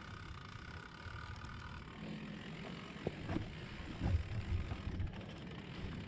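Wind buffeting the microphone as an uneven low rumble, with a few faint knocks around three and four seconds in.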